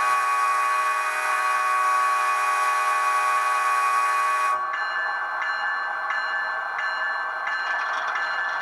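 Model locomotive sound decoder playing a GE ES44AC's multi-chime air horn through the HO-scale model's small speaker: one long steady blast, already sounding at the start, that cuts off about four and a half seconds in. The recorded diesel engine keeps idling underneath and after it.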